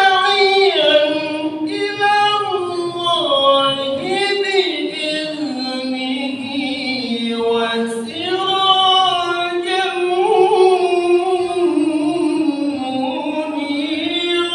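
A man's solo voice chanting through a microphone and loudspeaker, holding long ornamented notes that bend slowly up and down, in the melodic style of Arabic recitation.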